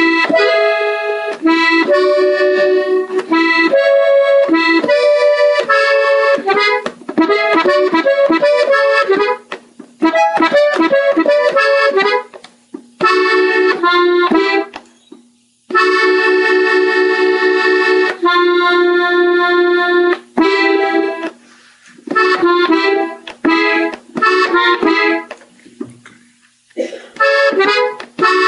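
Gabbanelli button accordion playing a melody slowly, phrase by phrase, with short pauses between phrases and a chord held for about four seconds midway.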